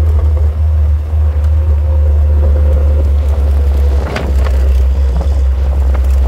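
Open-top 1989 Marlin Roadster driving at a steady pace: heavy wind rush and road rumble over a steady engine drone, with a brief rattle about four seconds in.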